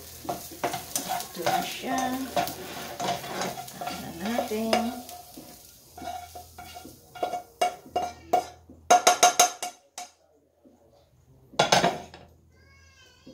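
A spatula stirring and scraping mixed vegetables in a nonstick frying pan over a faint sizzle, with many clicks that make the pan ring. About nine seconds in comes a quick run of loud taps as the spatula knocks the vegetables out of the pan, then a single loud clunk near the end as the pan is set back down on the coil stove.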